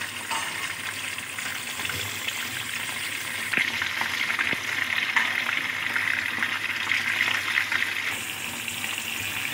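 Marinated chicken pieces sizzling in hot oil in a non-stick wok: a steady crackling sizzle that grows louder about three and a half seconds in and eases off again near eight seconds.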